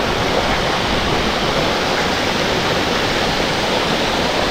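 Small stream rushing down over the rocks of a steep hillside gully: a steady, even rush of water.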